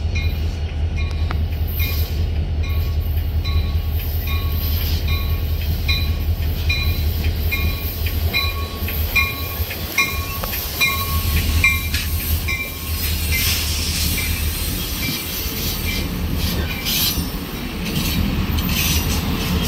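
Amtrak passenger train rolling into the station behind cab car 90251: its bell rings steadily, about one stroke every 0.7 seconds, over a low rumble. The bell stops about twelve seconds in, and the passing coaches' wheels clatter and hiss on the rails.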